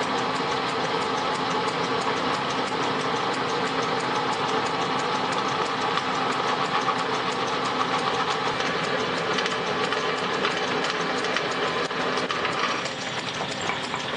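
Drill press running with a twist drill cutting into a 1-inch metal bar held in a vise, a steady motor and cutting sound. Near the end a higher steady tone drops out and the sound eases.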